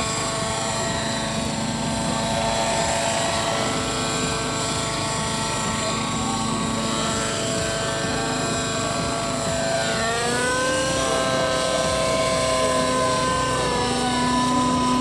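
Nitro-fuelled radio-controlled model helicopter in flight: its small glow engine and rotor make a steady, high-pitched whine. The pitch rises about ten seconds in as it picks up speed and climbs away.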